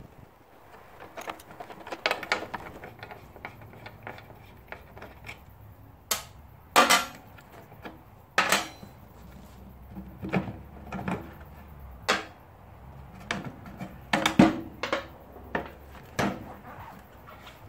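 Metal spanner clinking and knocking on the seat mounting bolts and steel seat pan of a ride-on mower as the seat is unbolted: irregular clicks and clanks with several louder knocks.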